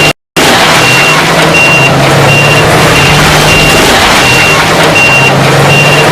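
Heavy machine's reversing alarm beeping steadily, about once every three-quarters of a second, over a loud running diesel engine.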